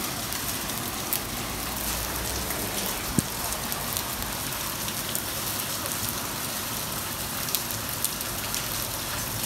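Hail and rain falling steadily on paving: an even hiss with a few scattered sharp ticks.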